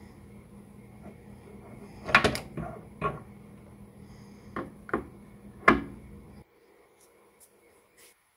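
Steel Multifix tool post being lifted off its post and set down on the machine table: a series of metal clunks and knocks, about half a dozen, the loudest near six seconds in.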